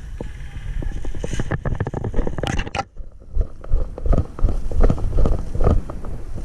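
Irregular scuffing, rustling and knocking of gear and clothing rubbing against the microphone during a crawl, with a heavy low rumble and scattered sharp thumps.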